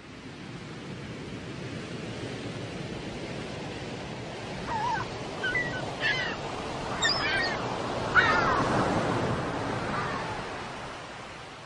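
Sea waves washing in, the surf swelling to a peak and then fading. Several short bird calls sound over it in the middle.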